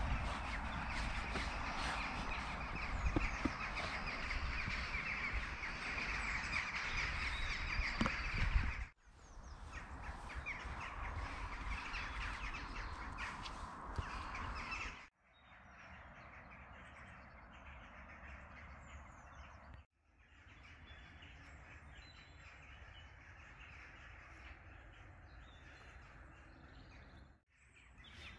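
Winter woodland ambience with birds calling, crows among them, in several short stretches that cut off abruptly. The first stretch is the loudest, with a low rumble under it; the later ones are quieter.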